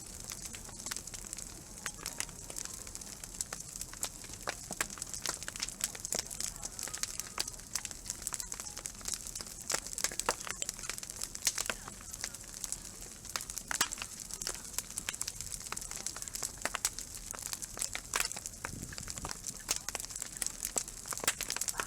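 Wood campfire crackling, with many quick pops and snaps from the burning wood over a steady hiss.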